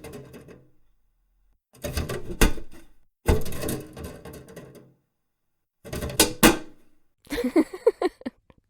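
Four short bursts of clattering clicks and knocks, each about a second long with silence between, then a shorter burst with a wavering pitched sound near the end.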